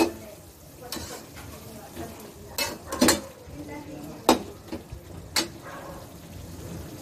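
Metal spatula stirring and scraping pork around a metal wok, with about five sharp clinks of the spatula against the pan over a steady low sizzle as the broth cooks down.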